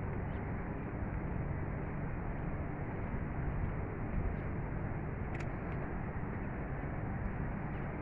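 Steady outdoor city ambience: an even low rumble and hiss, with a faint click about five seconds in.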